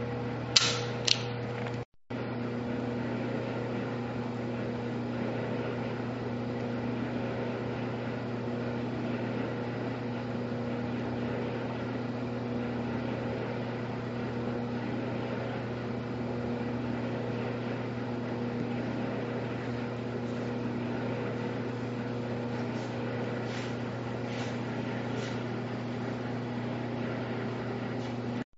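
Steady electrical room hum with a low buzzing tone. Just after the start, two sharp clicks half a second apart come from the Sig P290 pistol being handled, and a few faint clicks follow later.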